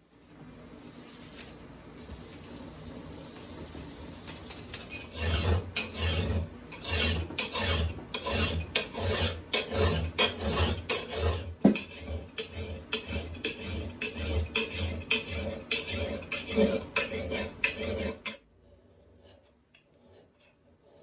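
Hand file scraping across the steel bit of a Plumb Jersey axe head, push filing a splitting profile into it. A lighter, steadier rasping for the first few seconds gives way to firm, regular strokes at about one and a half a second, which stop a few seconds before the end.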